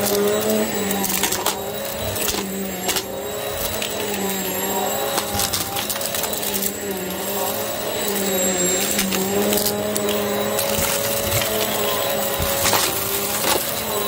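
Hoover upright vacuum cleaner running on carpet, its motor pitch wavering slightly as it is pushed back and forth. Scattered sharp crackles and clicks of small hard debris being sucked up through the brush roll.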